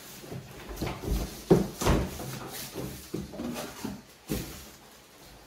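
Large cardboard box holding an air fryer being shifted and set down on a kitchen counter: several dull knocks and cardboard scrapes, the loudest about one and a half seconds in.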